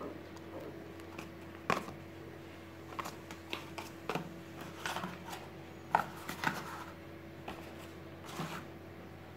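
Scattered light clicks and taps of small hard objects being handled, irregular, the sharpest about a quarter of the way in and again about two-thirds in, over a steady low hum.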